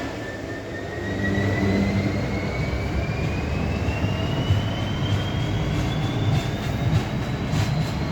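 Freight train of tank wagons hauled by a Class 66 diesel locomotive passing slowly, with a deep rumble from its engine and wheels and a thin whine rising slowly in pitch. A few sharp wheel knocks come near the end, from a flat wheel on the train.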